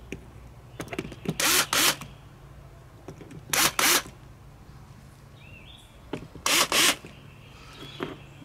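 Cordless drill triggered in short bursts, two quick spins at a time, three times over, with its bit in a boat cleat's mounting hole against the fiberglass gunwale, spotting the hole positions.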